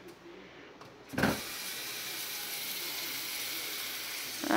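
Kitchen tap turned on about a second in and running steadily, filling the cat's water bowl.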